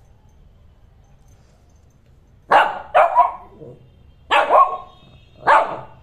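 Shih Tzu puppy barking: about five short, sharp barks, some in quick pairs, starting about two and a half seconds in. Play-soliciting barks, the puppy wanting someone to play with it.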